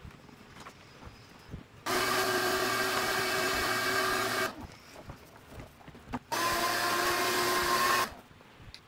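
Shop vacuum switched on twice, running with a steady whine for about two and a half seconds and then under two seconds, sucking up sawdust from a routed plywood sheet.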